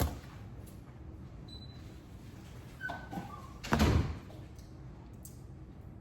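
A sharp knock at the start, then a louder, heavier thud just under four seconds in, like a cupboard or door being shut, with a brief faint squeak just before it.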